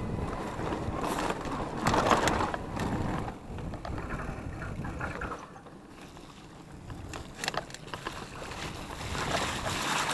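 Riding noise from an electric mountain bike on a dirt singletrack: wind buffeting the camera microphone and tyres rolling over the dirt, with sharp clicks and rattles from the bike over bumps. The noise eases for a couple of seconds in the middle and picks up again near the end.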